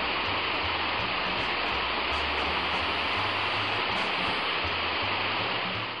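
Waterfall rushing steadily, a dense, even hiss of falling water that fades near the end.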